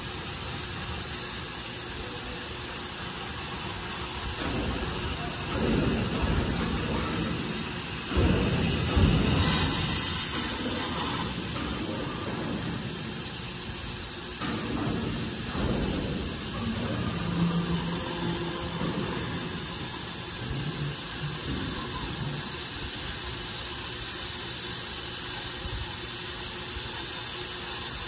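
Oxy-fuel cutting torch on a CNC gantry hissing steadily as its gas jet cuts through thick steel plate. A few louder low rumbles rise and fade in the first half.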